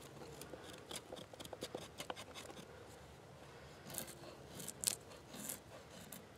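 High-carbon steel knife blade shaving a wooden stick: a run of short, faint scrapes and clicks, with a few louder strokes near the end.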